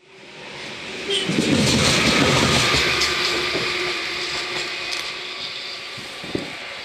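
A Siemens Taurus electric locomotive (SŽ class 541) runs light past at line speed. Its wheels rumble and clatter on the rails over a steady electrical hum. The sound swells about a second in and then fades as the locomotive draws away, with a sharp click near the end.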